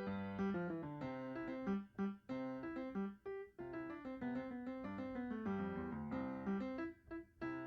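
Background piano music: a keyboard melody of quick notes over chords, played at a steady pace.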